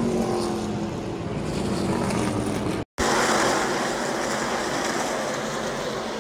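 A pack of NASCAR stock-car racers passing at speed, their V8 engines a loud drone with pitch sliding down as they go by. The sound cuts out abruptly for a moment about three seconds in, then returns as a dense, steady engine drone.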